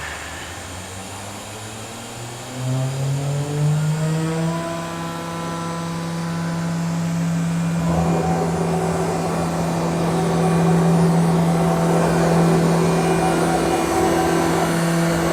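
CNC router spindle spinning up, a rising whine that levels off after about three seconds and then runs steady. About eight seconds in, a rougher noise joins it as the bit cuts into the MDF.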